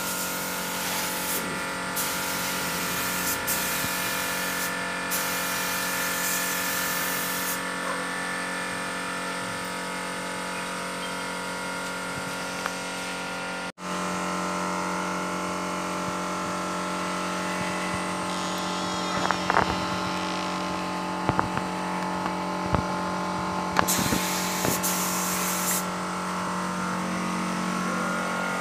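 Air compressor running with a steady hum while a compressed-air spray gun hisses in bursts as it sprays PU polish: several bursts in the first seven seconds, two more near the end. A few knocks in between, mostly in the second half.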